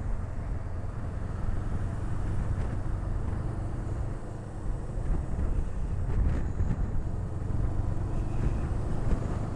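Motorcycle engine running steadily while the bike is ridden, a low, even hum.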